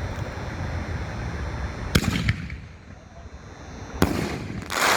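Firework canister shell (chrysanthemum effect) fired from a mortar tube: a sharp bang about two seconds in, then another sharp report about two seconds later as the shell bursts high overhead, with a longer burst right after it near the end.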